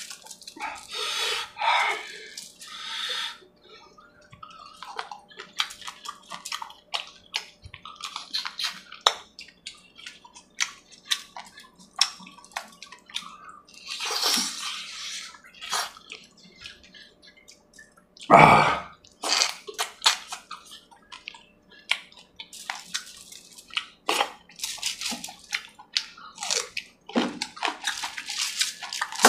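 Close-up wet chewing, lip smacking and squelching of a man eating saucy chicken curry with his fingers, in many short irregular wet clicks, with one louder noise a little past halfway.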